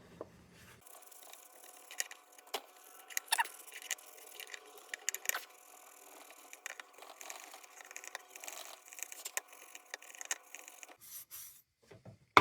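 Steel wool being rubbed over a chrome lantern part, a faint run of irregular scraping and scratching strokes with small clicks, stopping near the end.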